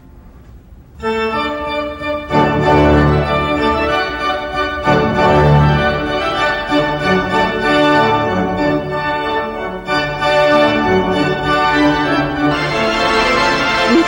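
Organ music: held chords with a moving melody on top, coming in sharply about a second in after a brief lull.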